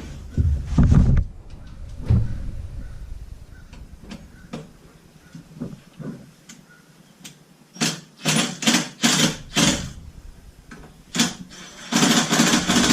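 Hand work on a motorcycle's storage-lid hinge: a few heavy thumps and knocks about a second in, light ticks, then two runs of quick sharp scraping, rattling strokes, about three a second, near the middle and again near the end.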